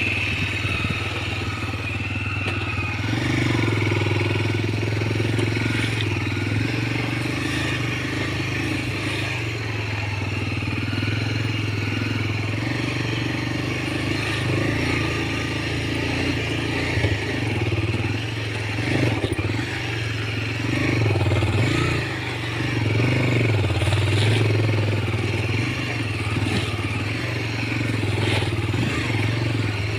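Motorcycle engine running as the bike is ridden, its pitch and loudness easing up and down slightly as the throttle changes, with light rattling from the bike.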